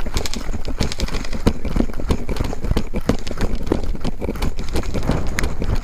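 Running footsteps on dry, stony dirt: a quick, uneven run of crunching footfalls.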